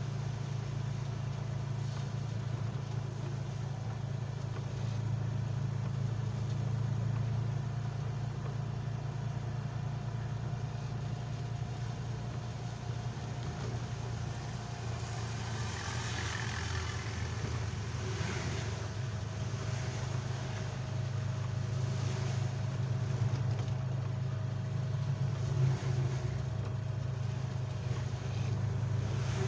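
Steady low engine drone of a vehicle driving, with the even hiss of tyres on a wet road. About halfway through there are two brief louder swells of hiss.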